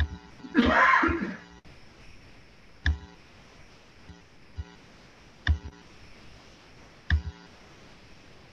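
A short loud burst of noise about half a second in, then four separate dull knocks spread over the following seconds, over a faint steady hiss.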